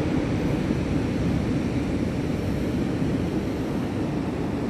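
Steady rumble of ocean surf mixed with wind buffeting the microphone, a continuous low noise without breaks.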